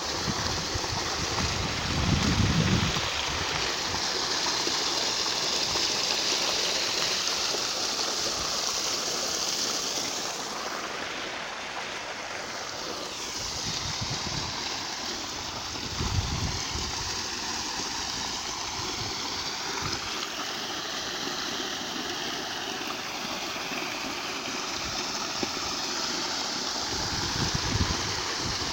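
Stream water rushing steadily over a small waterfall, with a few brief low rumbles about two seconds in, near the middle and near the end.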